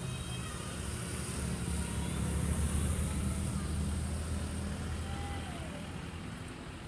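A motor vehicle engine running with a low hum that swells louder in the middle and then eases off, over a steady high hiss.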